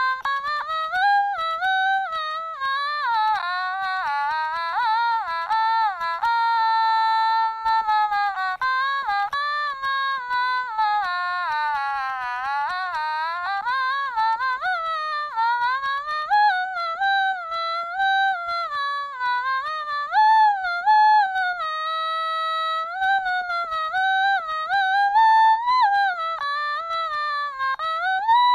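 Otamatone playing a melody: a single electronic voice stepping and sliding between notes, with vibrato on the held notes.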